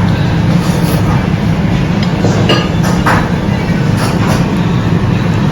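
Steady low rumble of a moving train, with a few faint clicks.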